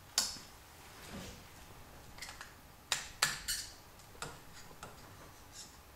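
Light metallic clicks and taps of a hand tool against an aluminium two-stroke piston as its wrist pin is pushed at, about six in all, the loudest a quick few about three seconds in.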